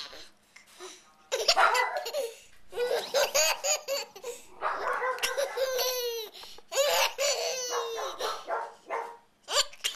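A small child laughing in high-pitched giggles, in several spells of quick bursts with short pauses between them.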